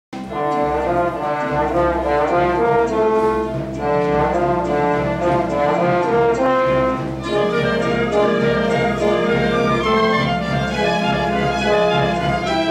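Orchestral dance music from a stage musical's ballet, with brass to the fore, playing continuously; the texture shifts a little past halfway.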